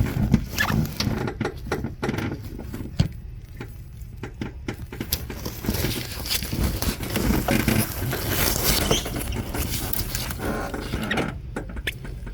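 Hand tools and metal engine parts clicking, knocking and scraping in an irregular run of short sounds while bolts are worked loose from a thermostat housing.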